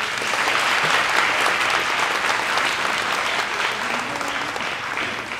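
Audience applauding, a dense patter of many hands clapping that starts suddenly and begins to die away near the end.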